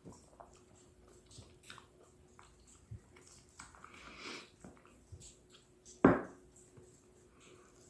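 Close-up chewing and biting of ripe fruit, a scatter of small mouth clicks, with one sharp, loud thump about six seconds in.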